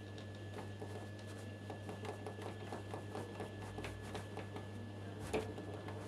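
Samsung front-loading washer-dryer humming steadily under a quick run of light ticks. A single sharp click about five seconds in is a press on its control panel.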